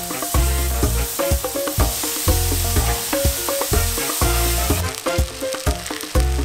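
Chicken sizzling and spitting on a braai grill over the fire, then, about five seconds in, raw rice with corn and pepper sizzling as it fries in a hot pot. Background music with a steady bass line and plucked notes plays over it.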